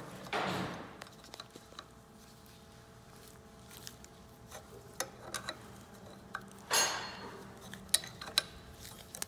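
Steel adjustable wrench clinking and clicking against the fittings as the filling screw on a Tramac hydraulic hammer's accumulator charge kit is turned. There are two short hissing rushes, one just after the start and a louder one about seven seconds in.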